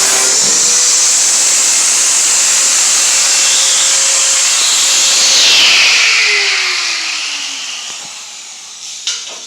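Large angle grinder working the rusty steel of a pickup bed. It runs loud and steady, then, about six seconds in, leaves the metal and winds down with a falling whine. A couple of sharp knocks come near the end.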